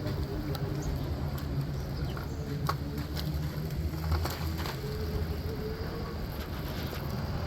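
City street traffic heard while riding, a steady low rumble with a few held engine hums and scattered clicks and knocks.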